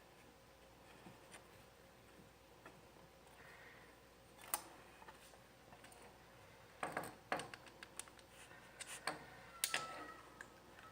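Scattered light clicks and knocks of small metal parts and tools being handled, a few seconds apart, the sharpest about halfway through and a small cluster a little later.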